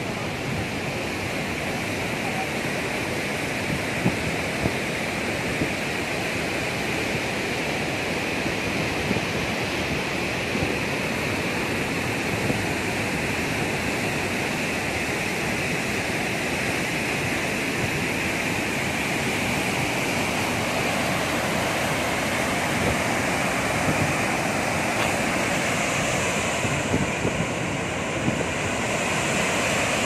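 Rushing water of a waterfall and its rapids pouring over sandstone boulders, a steady unbroken rush.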